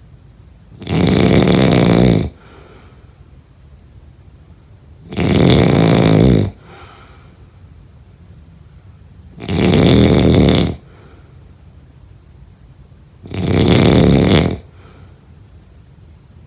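A person snoring in a steady rhythm: four loud snores about four seconds apart, each lasting over a second, with a faint, softer breath after each one.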